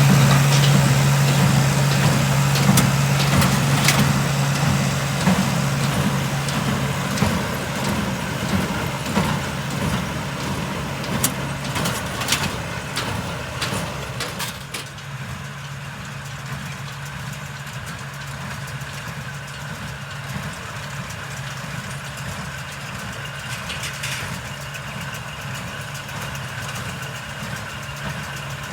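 Tractor engine running with a strong steady hum and scattered knocks and rattles. About halfway through it drops to a quieter, steady run.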